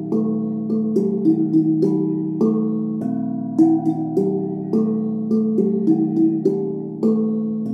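Instrumental music of plucked-string notes in a slow arpeggiated figure that repeats every few seconds.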